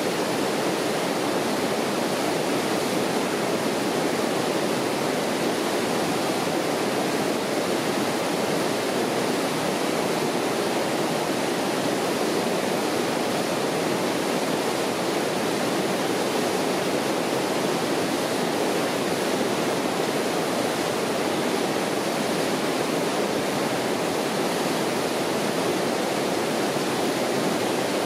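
River rapids: whitewater rushing steadily over rocks, a constant even roar.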